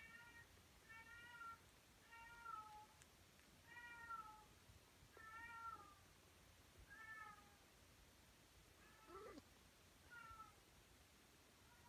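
A Tonkinese cat meowing over and over, faint short high calls about one every second and a half; one call about nine seconds in starts lower and rises.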